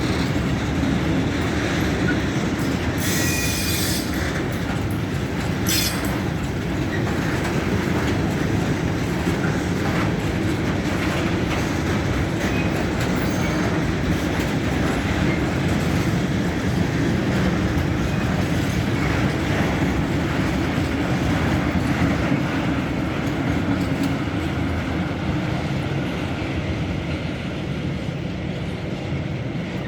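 Mixed freight train rolling past, its wagon wheels clattering over the rails, with short high-pitched bursts of wheel squeal about three seconds in and again near six seconds; the sound eases off near the end.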